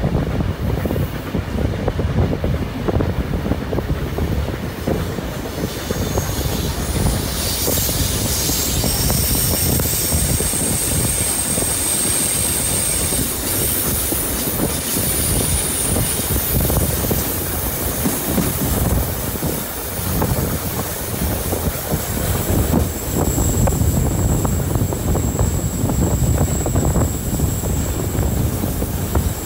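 Passenger carriage wheels rumbling and clattering over the rails, heard from an open carriage window. High-pitched wheel squeal comes in about six seconds in and breaks off around two-thirds of the way through, and a thin steady squeal returns near the end.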